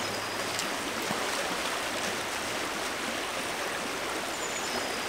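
Brook running high over a riffle: a steady, even rush of water.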